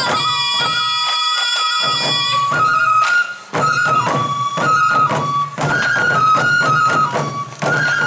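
Sansa odori festival music: a Japanese bamboo flute playing the melody over a group of sansa taiko drums struck with sticks in a steady rhythm. The music breaks off briefly twice, about three and a half and seven and a half seconds in.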